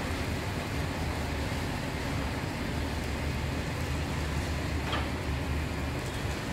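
Steady low hum of bakery machinery, with plastic bags rustling as loaves are slid into them and a brief click about five seconds in.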